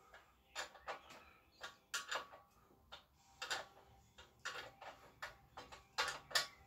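A run of short, sharp metallic clicks and clinks, irregular, about one or two a second, from a spanner working the dome nuts on a Honda ST70's rear shock mounts.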